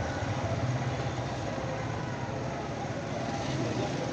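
Small motorcycle engine running steadily at low speed, heard from on the bike, under a haze of street and road noise.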